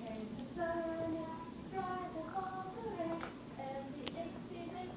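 A young child singing a tune in short held notes that step up and down, without clear words.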